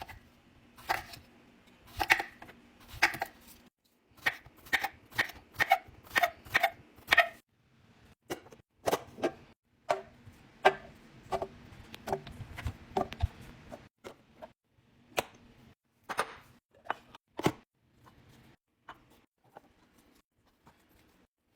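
Food containers and packages being handled and set down while a fridge is restocked: a series of light knocks and clicks, about two a second for a few seconds, with a soft steady hiss in the middle and scattered knocks near the end.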